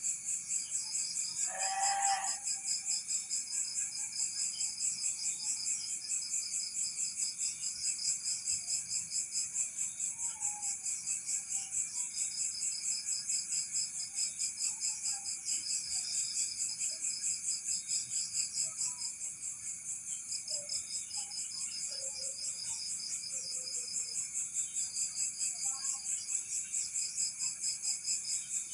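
Crickets chirping steadily in an even, fast pulse, about four or five pulses a second. About two seconds in there is one short, louder pitched call.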